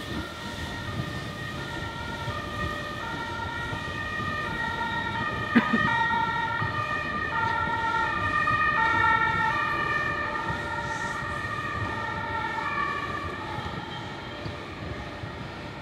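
Metre-gauge passenger carriages rolling slowly past on curved track, their wheels squealing in several high pitches that shift every half second or so over a low rolling rumble. One sharp clank comes about a third of the way in.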